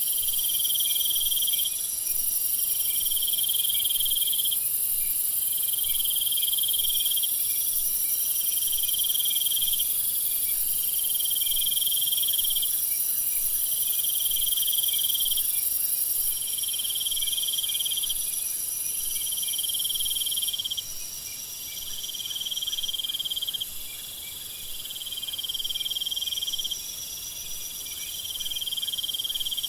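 Chorus of night insects in a tropical forest: a steady high shrill buzz, with a cricket-like trill lasting about a second and a half and repeating about every two seconds. The highest part of the buzz drops off a little past halfway through.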